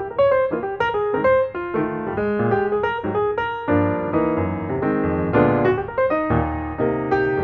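Background piano music: a light melody of quick notes over chords.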